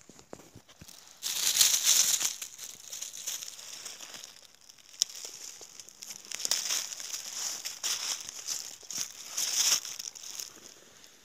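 Footsteps crunching and rustling through dry fallen leaves and twigs, in irregular surges, the loudest about a second in and again near the end.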